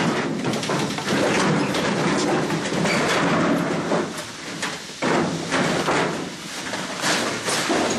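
Continuous rustling and scuffing with many small knocks: protective suits rubbing and footsteps over loose debris as the wearer moves through the room.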